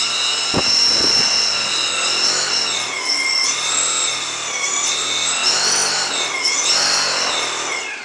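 Brushless drone motor spinning a propeller on a thrust stand, its whine rising and falling in pitch as it follows a replayed flight's throttle sequence. Two low thumps about half a second and a second in, and the sound drops away near the end as the throttle comes down.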